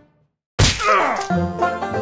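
Half a second of dead silence, then a sudden sound that falls in pitch, followed by plucked-string background music starting up.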